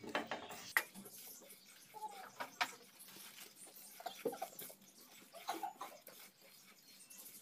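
A spatula stirring and scraping whole spices as they dry-roast in a nonstick pan: irregular light clicks, rattles and scrapes of seeds and bay leaves against the pan, with a couple of short squeaks.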